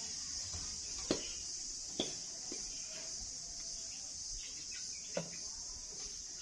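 Steady high-pitched chirring of insects, with a few light knocks about one, two and five seconds in.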